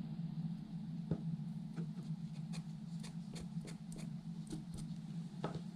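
Faint handling noise: scattered light clicks and taps over a steady low hum.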